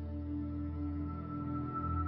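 Ambient background music: sustained low drones with a high held tone coming in about half a second in.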